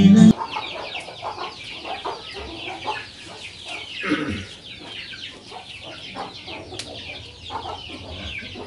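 Chickens clucking, with a continuous stream of short, high, falling chirps. A music track cuts off just after the start.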